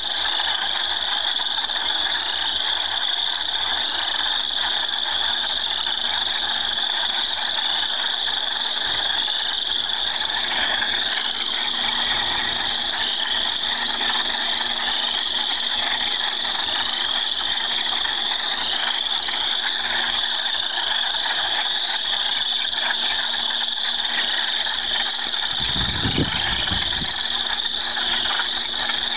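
A dense spring chorus of frogs calling from a marsh pond: many overlapping short rising trills repeating without pause. Near the end comes a brief low rumble.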